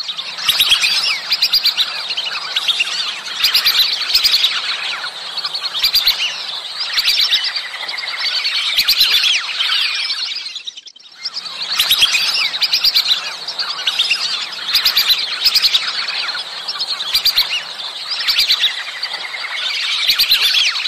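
A flock of lesser whistling ducks calling: many high, thin whistles overlapping in a continuous chorus, broken off briefly about halfway through.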